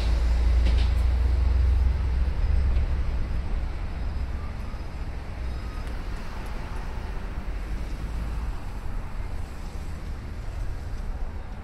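Outdoor city ambience: a deep rumble of passing vehicle engines over a steady hiss, loudest in the first few seconds and then easing off.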